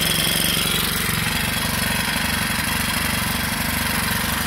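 Troy-Bilt TB516EC wheeled lawn edger's small four-cycle engine idling steadily, freshly pull-started and warming up.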